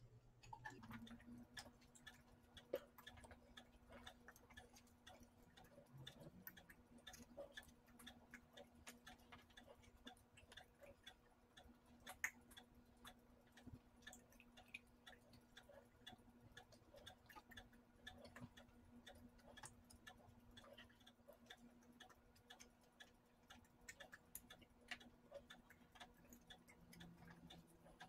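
Quiet room with faint, scattered small clicks and taps, a couple of them sharper (about three seconds in and about twelve seconds in), from hands handling the electric blanket controller and its cord, over a faint steady hum.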